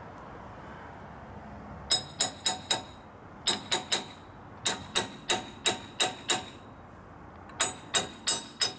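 Hammer striking steel axle parts, metal ringing with each blow: about seventeen blows in four groups of three to six, roughly three a second, starting about two seconds in.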